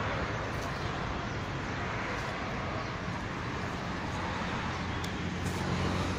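Steady traffic noise with a low engine hum underneath.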